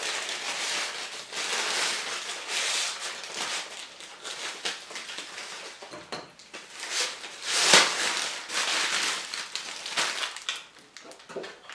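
Crisp bread crust crackling and crunching in a string of short bursts as it is broken apart and eaten, the loudest crack a little under eight seconds in.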